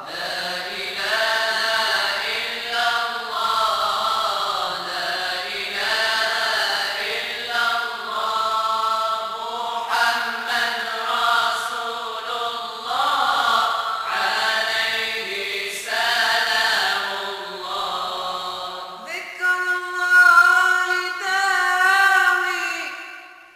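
Moroccan madih nabawi, religious praise of the Prophet, chanted by a group of voices. About nineteen seconds in, the melody moves up to a higher pitch.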